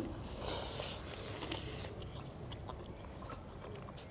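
Close-miked eating by hand: chewing and mouth noises as chicken and dhido are eaten. A hissy stretch of noise comes in the first two seconds, then softer chewing with scattered small clicks.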